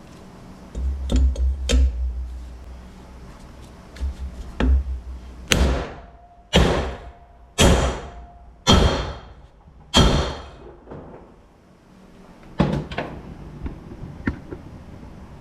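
Hammer blows driving a valve seat insert into a Brodix aluminium cylinder head: a few lighter knocks, then five hard, ringing strikes about a second apart, and two more near the end.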